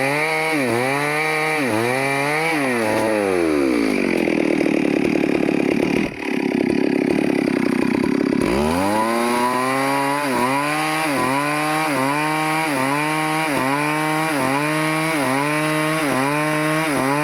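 Stihl two-stroke chainsaw cutting into teak wood, its engine pitch rising and falling rhythmically about once a second as it works through the cut. A few seconds in, the engine pulls down to a lower, rougher note for about four seconds, then climbs back to the same rhythmic rise and fall.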